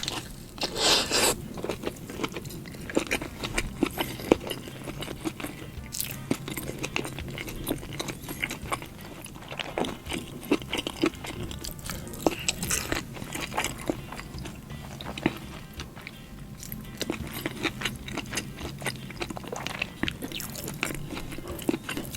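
Close-miked chewing and biting of a chicken burger with sambal petai (stink beans) and blue cheese: irregular crunches and wet mouth clicks.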